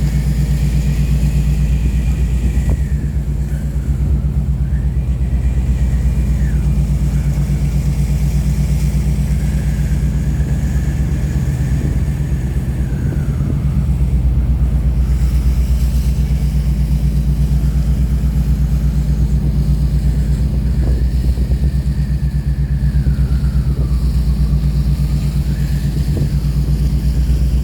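A steady, low engine drone with a fast even pulse, over which a fainter whine slides up and down in pitch several times.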